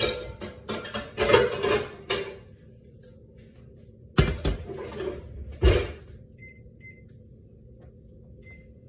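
Pots and pans clatter as a frying pan is pulled out. The pan then knocks down twice on a glass cooktop, about a second and a half apart. Near the end come three short faint beeps from the cooktop's touch controls.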